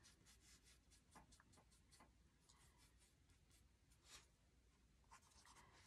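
Very faint, short swishes of a small paintbrush stroking acrylic paint onto a painted wooden board, several strokes a second; the room is otherwise near silent.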